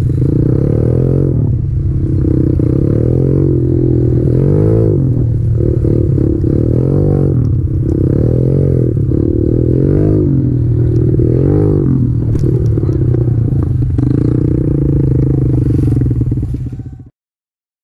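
Kawasaki KLX110 pit bike's single-cylinder four-stroke engine being ridden hard, its pitch rising and falling many times as the throttle is worked. The sound cuts off abruptly near the end.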